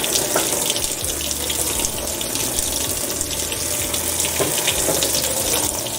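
Whirlpool washing machine filling its basket with water: a steady rush of water pouring in over a faint low hum. This is the normal sound of the fill stage.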